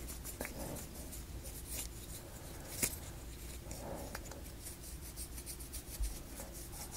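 Faint scratchy rubbing and light ticking of a paintbrush working wax onto laser-cut plywood model parts, with one sharper click about three seconds in.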